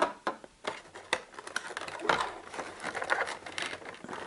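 Hands handling the unboxed parts: a plastic power-over-Ethernet adapter set down on a wooden table with a light knock, then the antenna feed worked out of its cardboard box insert, with scattered clicks, rustling and scraping that grow denser in the second half.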